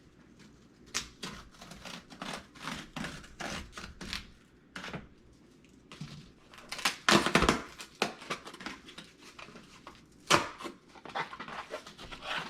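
Scissors cutting and scraping through packing tape on a mail package, with irregular snips and rustling of the packaging. There is a louder stretch of tearing and handling about seven seconds in, and a sharp knock near ten seconds.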